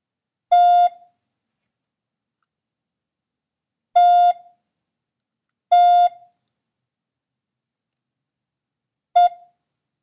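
Morse code practice tones sent one character at a time: three long dahs (the letter T) spaced a second or more apart, then, near the end, one short dit (the letter E). Each is a steady beep at the same pitch.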